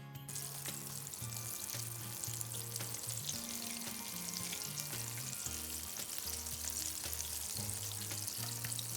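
Breaded chicken drumstick deep-frying in hot oil: a steady, dense sizzle of bubbling oil.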